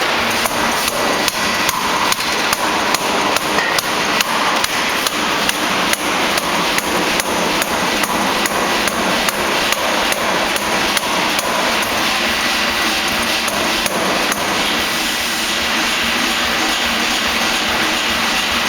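Pneumatic forging hammer (air hammer) striking in rapid, evenly spaced blows, about two to three a second, over the steady noise of the running machine. The blows stop about three-quarters of the way through while the machine keeps running.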